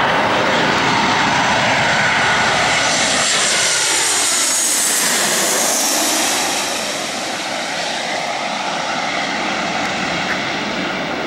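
Boeing 737-800's CFM56 turbofan engines on final approach, passing low overhead: a loud jet rumble with a high whine that peaks as the airliner goes over, then drops in pitch and eases off a little as it heads away toward the runway.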